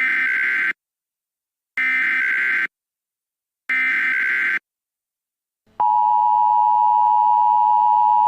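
Emergency Alert System tones: three short bursts of SAME header data tones, then a loud, steady two-tone EAS attention signal that starts about six seconds in. The tones are a simulation that the uploader says is invalid, not a real alert.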